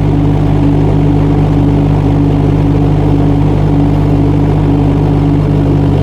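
Mini excavator's Kubota D902 three-cylinder diesel engine running at a steady speed.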